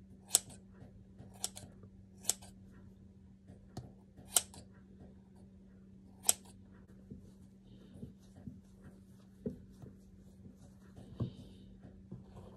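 Scissors snipping through a Shih Tzu's long hair: about five sharp snips in the first six seconds, a second or two apart, then fainter clicks and rustling as the fur is handled. A steady low hum runs underneath.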